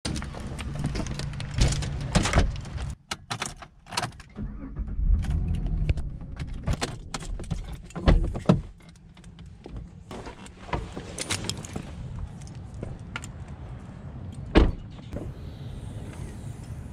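A string of clunks and knocks with keys jangling: a house door, a car door and a rear liftgate being opened and shut, with the loudest thuds about 2, 8 and 14 seconds in.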